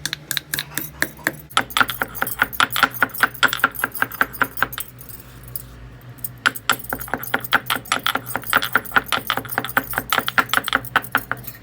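Dry ginger root being pounded to a powder: rapid repeated sharp strikes with a clattering, ringing edge, in two runs with a short pause in the middle.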